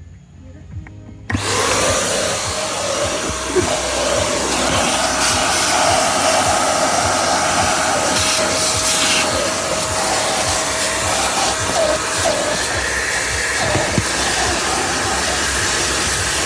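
Yamamax Pro vacuum cleaner switched on about a second in: its motor spins up with a short rising whine, then runs steadily with a loud whine over a rush of air.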